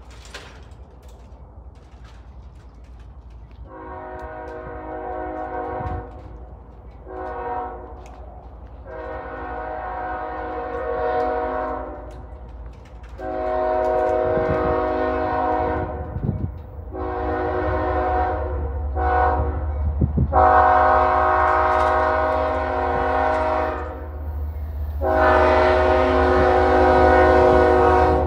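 CSX diesel locomotive's air horn sounding a chord in a long series of long and short blasts as the train approaches a grade crossing, starting about four seconds in. Under the blasts the locomotive's engine rumble grows steadily louder as it nears.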